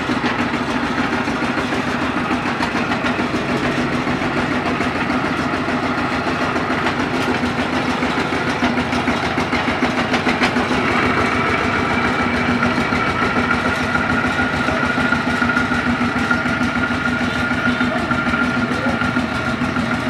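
Single-cylinder diesel engine of a two-wheel walking tractor running steadily with a rapid, even chug. About halfway through, a steady high whine joins in.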